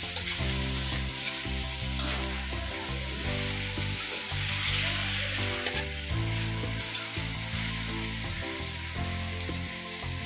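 Frogs frying in hot oil in a steel wok: a steady sizzle, with a spatula scraping and knocking against the wok as they are stirred, one sharp clink about two seconds in.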